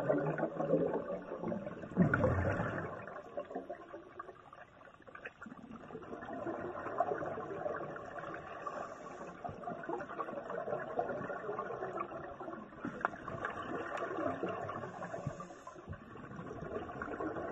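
Muffled underwater sound from a submerged camera in a swimming pool: water churning and bubbling, swelling and fading, with a stronger surge about two seconds in.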